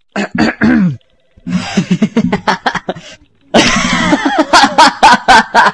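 A cartoon character's voice laughing: stifled chuckles in short spurts, then bursting into loud, rapid, uncontrolled laughter about three and a half seconds in.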